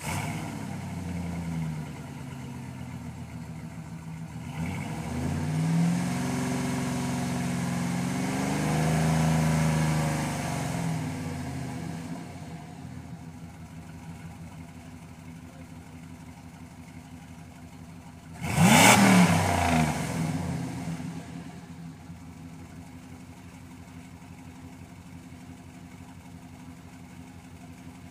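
Jeep SUV's engine running through a side-exit exhaust at idle. About five seconds in the revs rise slowly and fall back, and about two-thirds through a short, sharp blip of the throttle is the loudest moment before it settles back to idle.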